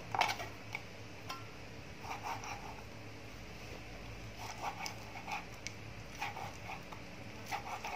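Cleaver slicing raw beef on a wooden chopping board: faint, irregular taps of the blade against the board, over a low steady hum.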